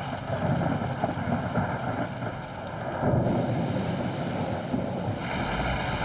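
Wind and rain noise mixed with a heavy machine's engine running, the sound changing abruptly a little after 3 s and again around 5 s.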